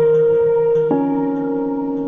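Background music of sustained, held notes that move to a new chord about a second in.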